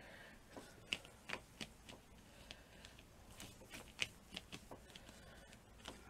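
Wide paintbrush stroking a watered-down clear glue mixture onto a plastic sheet: faint, irregular brushing strokes, about ten of them.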